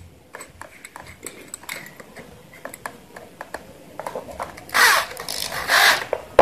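A corded Hitachi electric drill being picked up and handled on a wooden worktable: light clicks and knocks, then two short, louder sounds about a second apart near the end.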